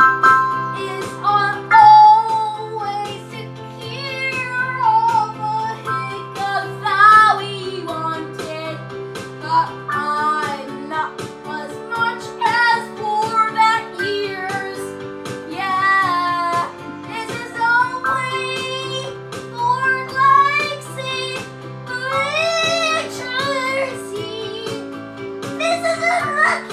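A boy sings an improvised, made-up song over long held piano chords that change every few seconds.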